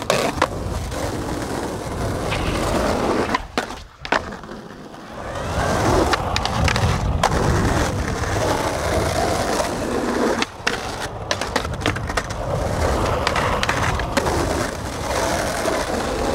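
Skateboard wheels rolling on rough asphalt, a steady rumble broken by sharp clacks of tail pops and landings, with trucks grinding along a ledge. The sound dips briefly about four seconds in, then the rolling picks up again.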